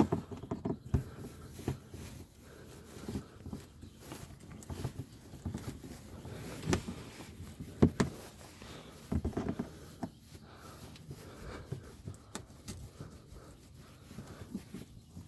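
Scattered clicks, taps and rustling from hand-tool work on the screw and plastic push clips holding a car's inner fender liner in the wheel well. The sharpest clicks come right at the start and a little past halfway.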